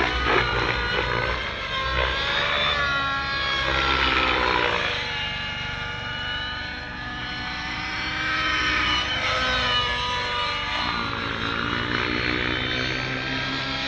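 Nitro RC helicopter's glow engine and rotor blades in flight, a pitched whine that rises and falls over a few seconds at a time as the helicopter manoeuvres.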